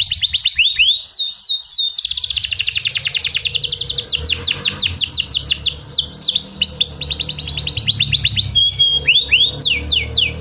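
Domestic canary singing: long runs of very fast repeated notes broken by sliding whistled notes, with a short steady whistle and a few falling slides near the end.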